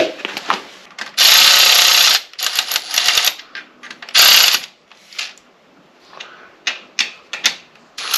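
Metal tools and engine parts clicking and clattering as they are handled, with a longer run of rapid clicking about a second in and a shorter one about four seconds in.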